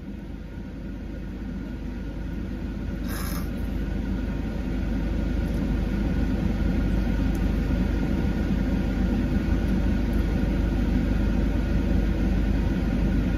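Car engine idling, heard from inside the cabin as a steady low rumble that grows louder over the first few seconds and then holds. A short scrape-like noise comes about three seconds in.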